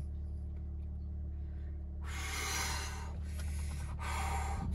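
Steady low hum of a car idling, heard inside the cabin. From about two seconds in, a man blows out several hard puffs of breath through pursed lips, sweltering in the heat.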